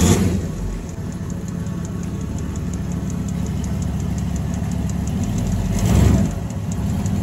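Bullnose Ford F-150's 302 V8 idling just after being started, with a fast, even ticking over the idle and a brief rise in revs about six seconds in.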